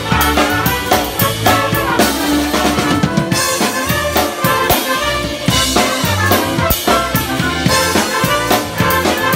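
Live band playing an upbeat song, the drum kit loud and close with steady snare, bass drum and cymbal hits over sustained instrumental notes.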